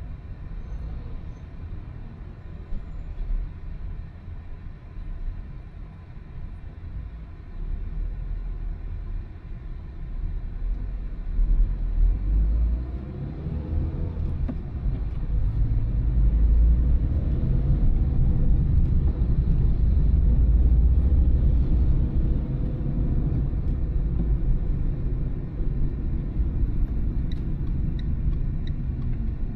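Car driving on town roads: low engine and road rumble that builds from about eight seconds in as the car gathers speed, with an engine note rising and falling, then eases off near the end.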